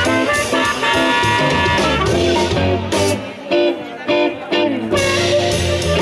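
A live blues band playing: harmonica holding long chords over electric guitar, upright bass and drums for the first two seconds, then the harmonica drops out and guitar, bass and drums carry on in a sparser passage with brief gaps.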